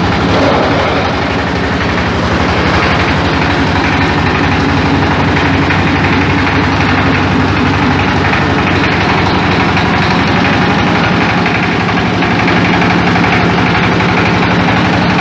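Small stationary diesel engine running steadily, belt-driving a cassava chopping machine.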